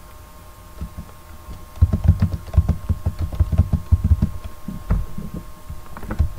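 Computer keyboard typing: a quick run of keystrokes starting about two seconds in, ending with a single louder click near the end, over a faint steady whine.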